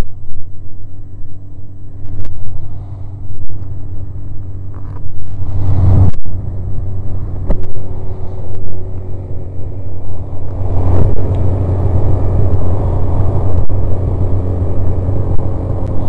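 Snowmobile engine running while under way, a low rumble with steady engine tones. It eases off in the first couple of seconds, then picks up again about five seconds in and once more from about eleven seconds.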